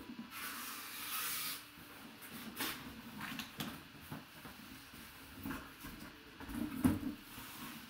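Cardboard box being opened and handled: a long scrape of cardboard sliding early on, then scattered taps and rustles, and a dull thud about seven seconds in.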